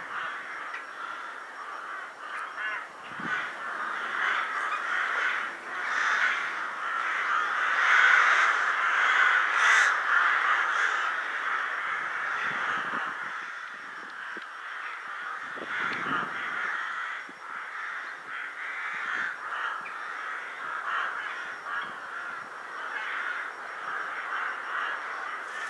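A large winter flock of rooks cawing, many calls overlapping into a continuous din, loudest about eight to ten seconds in. The flock is gathering before dusk.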